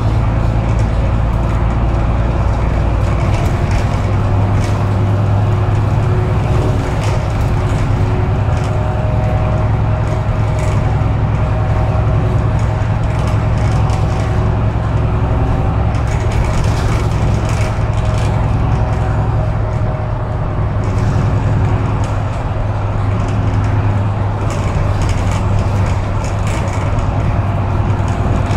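Cabin noise of a city bus running, heard from inside: a steady low engine drone with a faint whine above it and now and then a light rattle or click.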